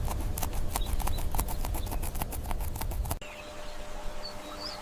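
Rapid, irregular sharp clicks over a low rumble, stopping abruptly about three seconds in. A quieter outdoor background with a couple of faint high chirps follows.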